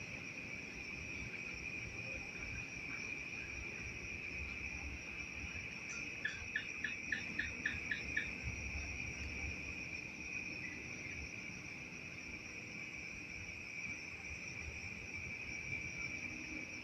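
Night insect chorus, a steady high-pitched trill that never lets up. About six seconds in, an animal gives a quick run of about eight short calls, roughly four a second, louder than the chorus.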